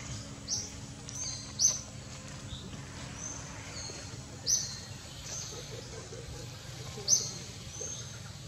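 Birds chirping: short, sharp, high calls repeating at irregular intervals, several of them louder, over a faint steady low hum.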